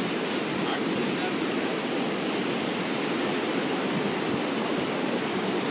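Steady rushing of ocean surf washing up on a sandy beach, an even noise without breaks.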